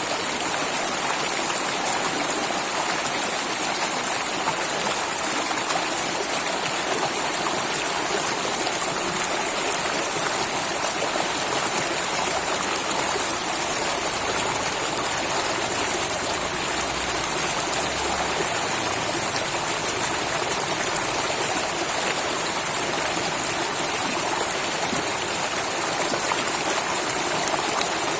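Stream water flowing steadily over rocks, an even rushing and burbling with no breaks.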